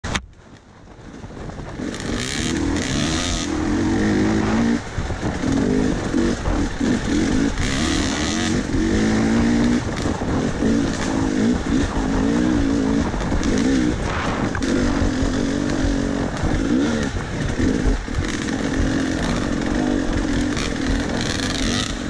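KTM 300 two-stroke dirt bike engine heard from on the bike, its pitch rising and falling as the throttle is worked over rough trail, with knocks and rattles from the bike over the ground. It fades in over the first two seconds.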